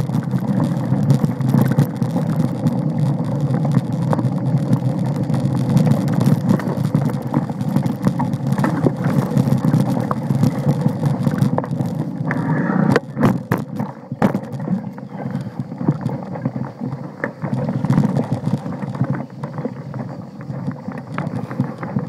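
Mountain bike rolling over a rough dirt trail: a constant rumble of tyres on the ground with rattling and knocks from the bike over bumps, and a burst of sharp knocks about thirteen seconds in. The sound is a little quieter after that.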